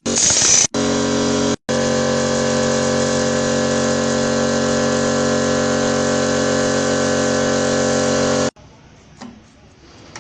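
A machine running at a steady speed with an even hum. It cuts out abruptly twice within the first two seconds, then runs without change until it stops suddenly a little past eight seconds in.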